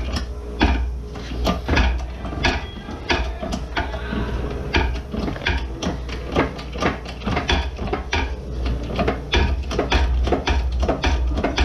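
Shop press driving a wheel hub into a front-wheel-drive hub bearing in a steering knuckle: an irregular run of short clicks and knocks, about two or three a second, over a steady low hum.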